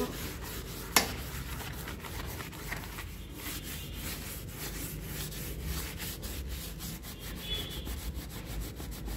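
A plastic carry bag rubbed briskly back and forth over the inside of a ceramic wash basin, a fast run of scrubbing strokes. A single sharp click about a second in.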